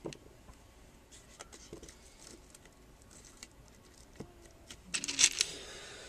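Faint, scattered small clicks and taps of craft work by hand. About five seconds in comes a short, louder, breathy vocal sound from a person, the loudest thing heard.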